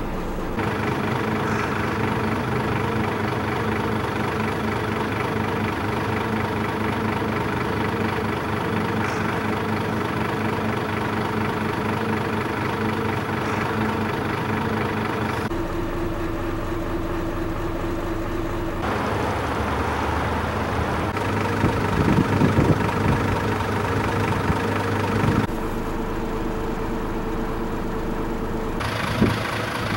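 Truck engine of a road anti-icing agent spreader running steadily at idle, with a few short clattering knocks in the later part.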